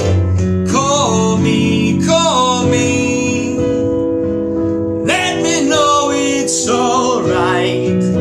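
A solo voice singing two slow phrases over guitar accompaniment, with held notes sustaining between the phrases.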